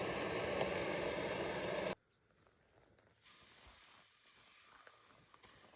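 Steady hissing noise that cuts off abruptly about two seconds in, followed by faint background noise.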